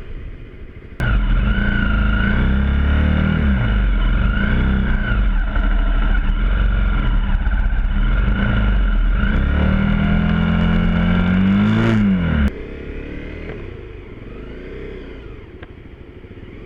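Motorcycle engine revving hard. It starts abruptly about a second in, rises and falls in pitch, and cuts off abruptly near the end, leaving a quieter engine sound.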